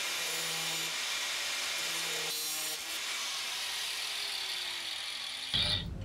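Corded angle grinder cutting through a chrome-plated metal tube: a steady high grinding hiss whose motor pitch sinks in the last second or so. About five and a half seconds in the grinding stops with a short clank.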